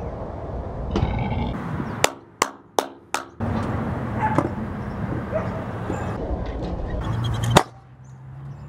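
Scooter wheels rolling on a concrete skatepark, with four sharp clacks in quick succession about two seconds in and one loud crack shortly before the end.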